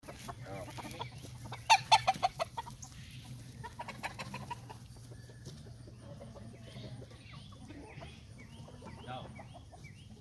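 Domestic chickens clucking, with a loud run of quick clucks about two seconds in, then softer, scattered clucks and calls.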